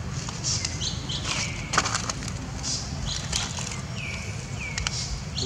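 Dry fallen leaves rustling and crackling in irregular short clicks as a long-tailed macaque forages through them, with the sharpest crackle about two seconds in. Short high chirps that fall in pitch come a few times over a steady low rumble.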